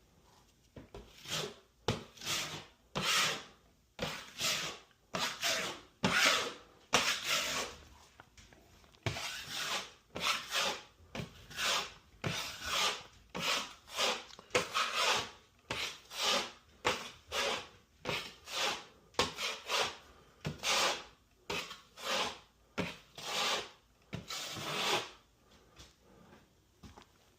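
Razor knife cutting drywall in repeated hand strokes, a scratchy rasp about once a second, with a brief pause partway through.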